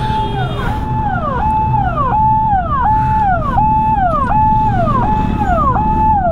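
Ambulance siren sounding loudly, a repeating electronic tone that holds a high note and then slides down, about once every 0.7 seconds, over a low rumble of engine and traffic noise.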